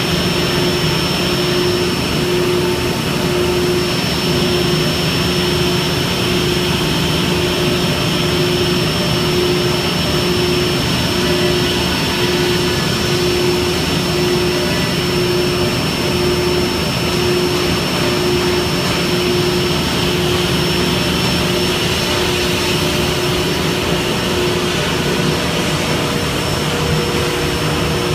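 SCM Sigma beam saw running without cutting: a steady blower-like rush with a thin high whine and a low hum that pulses a little faster than once a second.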